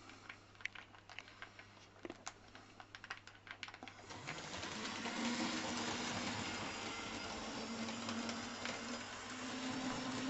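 Model railway train, a small Terrier tank locomotive with goods wagons, running on the track: irregular light clicks of the wheels over the rail joints, then a steady whirring from about four seconds in.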